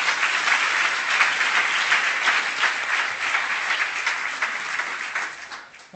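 Audience applauding: a dense patter of many people clapping, holding steady and then dying away over the last second or so.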